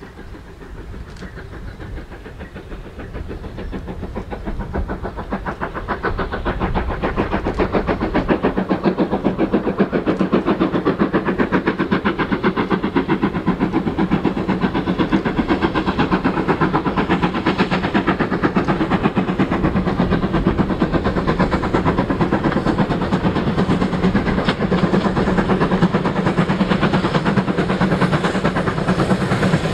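GWR 4200 Class 2-8-0 tank engine working a goods train, a steady rhythm of exhaust beats growing louder over the first several seconds as it approaches, then holding at full strength.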